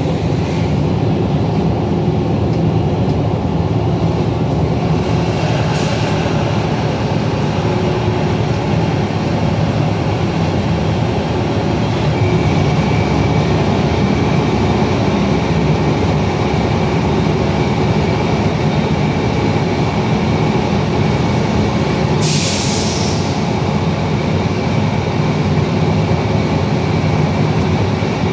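Train running steadily, heard from the driver's cab: a constant rumble of wheels and running gear. Two short hisses come through, one about six seconds in and one about three-quarters of the way through.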